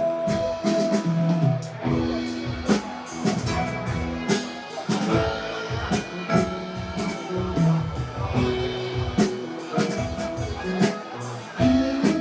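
Band music with guitar and drum kit playing, drum hits coming regularly under sustained guitar notes.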